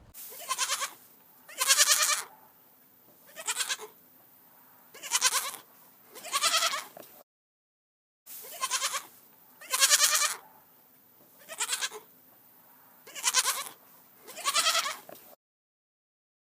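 Bleating livestock: a run of about five loud, quavering bleats, a short silent break, then another run of about five bleats.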